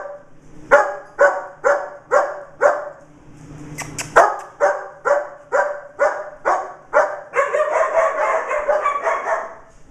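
German Shepherd barking repeatedly, about two barks a second, in two runs with a short break, then running into a longer unbroken stretch of barking near the end.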